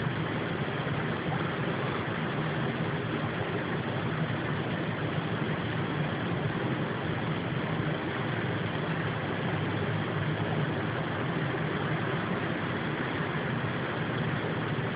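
Steady low drone of unknown origin under a constant hiss, unchanging throughout, the mysterious night-long rumble that the recorder likens to a distant helicopter, a mix of plane and helicopter.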